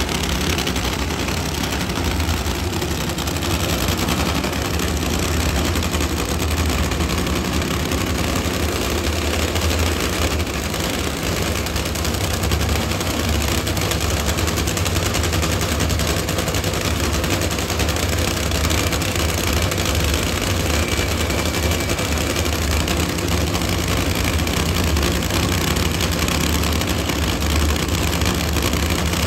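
Nitro Funny Car's supercharged nitromethane V8 idling, a steady, rapid crackling rumble.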